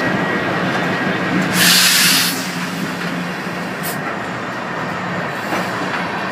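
Freight train passing close by: the trailing diesel locomotive's engine hum fades as covered hopper cars roll past with a steady rumble of wheels on rail. A loud hiss comes about a second and a half in.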